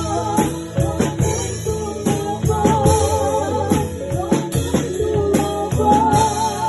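Gospel music played on a Casio electronic keyboard, with a drum and tambourine rhythm under a wavering, vibrato melody line.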